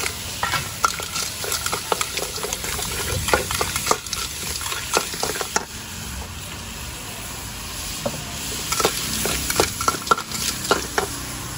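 Clams and chili paste sizzling in a hot wok while a metal spatula scrapes and clanks against the pan in quick, irregular strokes, some strikes leaving a brief metallic ring.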